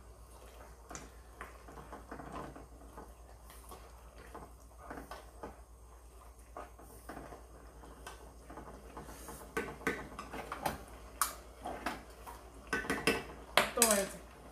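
Dishes and utensils clinking and knocking in irregular, scattered strokes that come thicker and louder in the last few seconds, with a short falling squeak near the end.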